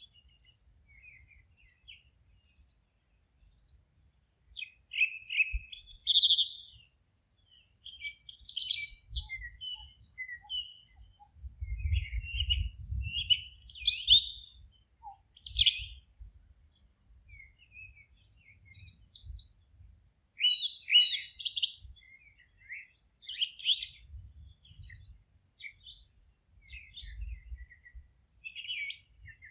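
Forest songbirds chirping and singing in short, high phrases that overlap and pause, with several birds calling at once. A faint low rumble runs underneath, strongest about twelve seconds in.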